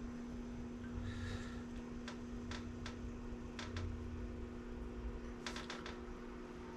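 Scattered faint clicks and taps, singly and in a quick cluster of three or four near the end, over a steady low electrical hum.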